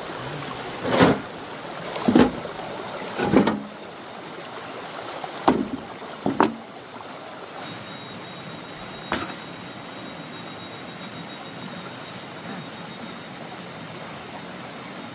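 Digging tool striking into soil: six dull chopping strikes, the first three about a second apart, then three more spaced out. A steady rushing noise runs underneath.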